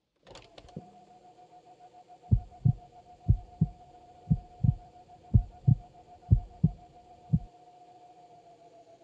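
Heartbeat sound effect: five low double thumps about a second apart, then one last single thump, over a steady high tone that sags slightly in pitch near the end.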